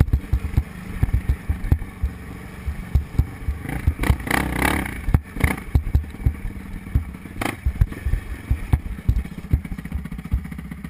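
Honda TRX450R quad's single-cylinder four-stroke engine running, heard through a helmet camera, with many irregular low thumps and knocks over it.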